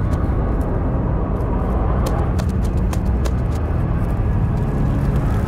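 A deep, steady rumble with scattered sharp clicks and taps over it, from a sound-design soundtrack.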